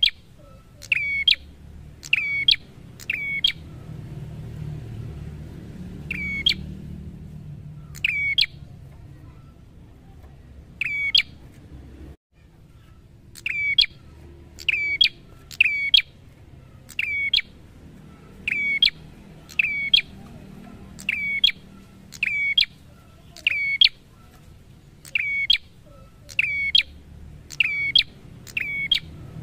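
A tailorbird calling: a string of sharp, high chirps, about one a second, with a pause of several seconds midway.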